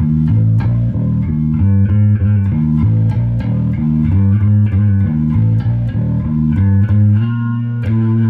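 Gibson Les Paul Money Bass electric bass played through a Mesa/Boogie Bass 400+ amp: a repeating riff of short plucked notes, several a second.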